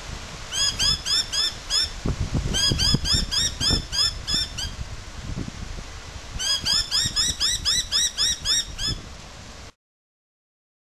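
A bird calling in rapid runs of short, sharp notes that slide downward, about four a second, in three bouts. Under it, a low rumble of handling noise on the microphone, and near the end the sound cuts out completely.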